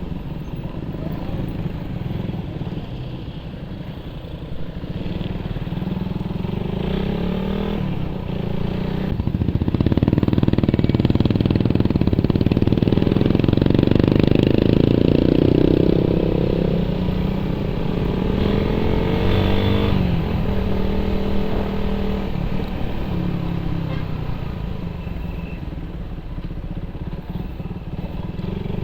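Carbureted Suzuki Raider 150 single-cylinder four-stroke with an open exhaust pipe, running on the move. The engine speed rises and gets louder about ten seconds in, then drops away near twenty seconds.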